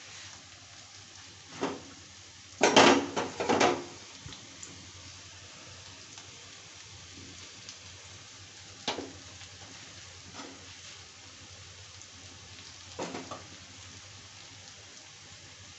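Sliced onions frying in oil in a kadhai, a steady sizzling hiss. A few brief clattering knocks from the pan or utensils cut in, the loudest a short burst of them about three seconds in, with smaller ones around nine and thirteen seconds.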